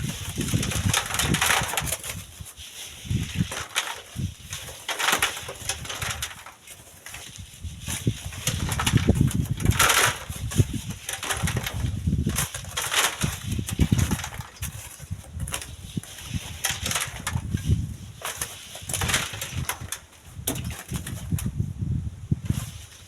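Strong gusty wind buffeting the microphone, low rumbling surges that rise and fall every second or two over a steady hiss.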